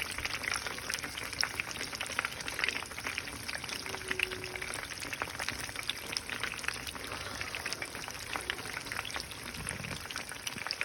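Fish frying in hot oil: a steady sizzle with dense, fast crackling spatter.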